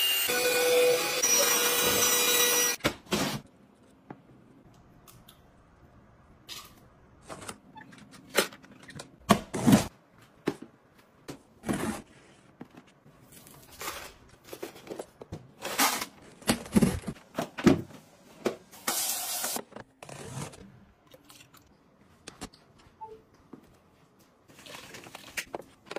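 A cordless handheld vacuum cleaner running for about three seconds, then cut off suddenly. After that come scattered short knocks and clicks of household items being handled.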